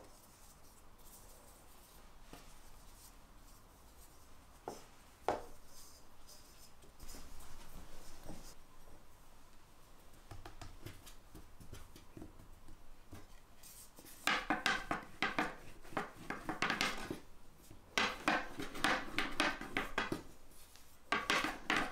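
Hands patting and pressing a small ball of baklava dough flat on a table dusted with corn starch: a quick run of soft slaps and rubs in the second half. Earlier there is only faint handling, with a couple of light knocks.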